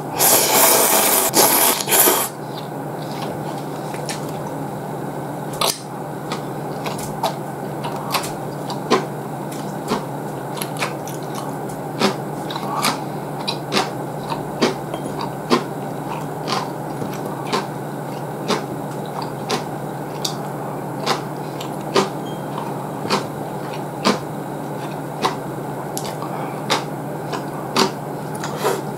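Ramen noodles being slurped loudly for about the first two seconds. Then mouth-close chewing with sharp wet clicks every second or so, over a steady low background hum.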